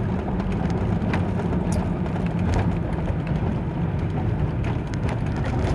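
Truck engine and road noise heard from inside the cab while driving: a steady low drone with a few short clicks.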